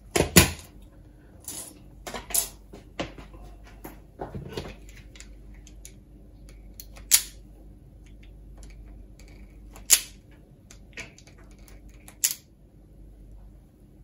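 Irregular sharp clicks and clacks of hand tools on a wooden bench: a spring-loaded wire stripper snapping as it cuts and strips the end of 300-ohm ladder line. About a dozen clicks, bunched in the first few seconds and spaced out after that.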